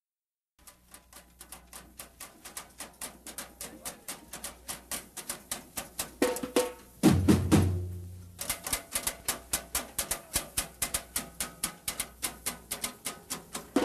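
Samba drum section (bateria) starting up out of silence about half a second in: quick, even drum strokes build steadily in loudness. Heavy low bass-drum strokes come in about seven seconds in, there is a brief drop, then the fast beat resumes at full loudness.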